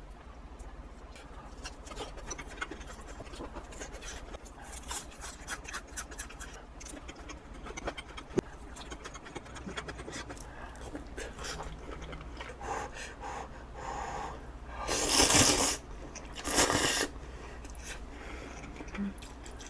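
Close-miked eating: small clicks and taps of utensils and chewing, then two loud breathy puffs of air, one about fifteen seconds in and a shorter one a second later.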